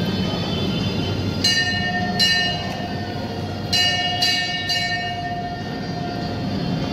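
Temple bell rung five times, two strikes and then three, each ringing bright and metallic over the steady hubbub of a crowded temple hall and a held low tone.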